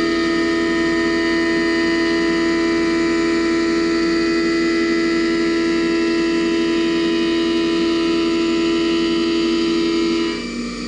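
Haas Mini Mill spindle and end mill cutting 6 mm steel plate under flood coolant: a steady whining tone with overtones that holds unchanged, then falls away about ten seconds in as the cut changes.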